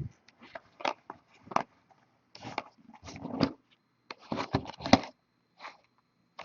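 Cardboard boxes being handled: scattered light taps, knocks and rustles.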